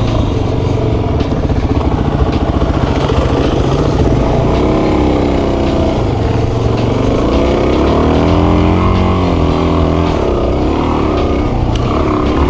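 Suzuki DR-Z400S single-cylinder four-stroke engine running under way, its revs rising and falling several times as the rider works the throttle, with wind rumble on the microphone.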